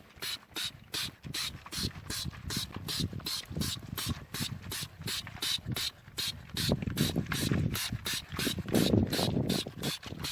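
Hand ratchet wrench clicking in quick, even strokes, about three to four clicks a second, with louder low knocks past the middle.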